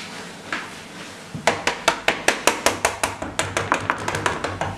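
Fork pricking pizza dough spread in a metal baking tray: a fast run of sharp taps, about six a second, starting about a second and a half in.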